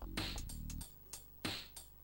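Background music with a steady beat: sharp drum hits over a bass line.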